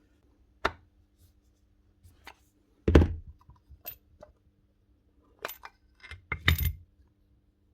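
Sharp clicks and knocks of small metal and plastic parts of a Basso pin nailer being worked by hand, as a steel washer is pressed to push the tight plastic air chamber out of the gun. The loudest knock comes about three seconds in, then a quick cluster of clicks near the end.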